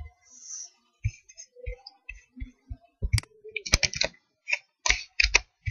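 Typing on a computer keyboard: a run of irregular keystrokes, sparse at first, then faster and louder from about three seconds in.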